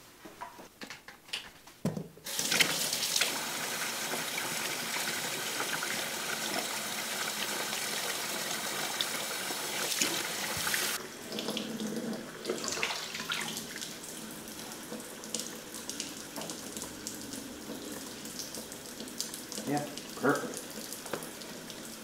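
Kitchen faucet opened about two seconds in and water running hard into a stainless steel sink. Past the middle the sound drops to a quieter, uneven splashing as the stream runs through a Keurig K-cup holder held under it. A few handling clicks come before the tap opens.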